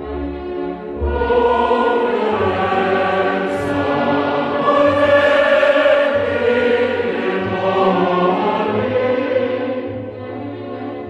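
Music of sustained, chant-like choral voices holding long notes over a steady low drone.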